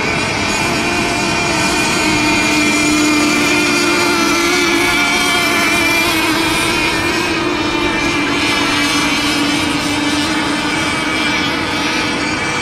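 Engines of racing radio-controlled boats running at high revs, a continuous buzz whose pitch wavers slightly as the boats run the course.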